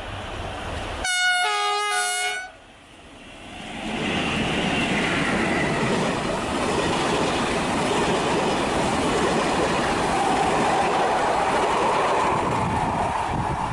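A diesel-hauled passenger train sounds a two-note horn for about a second and a half as it approaches. Its Corail coaches then pass close by with a loud, steady rumble of wheels on rail.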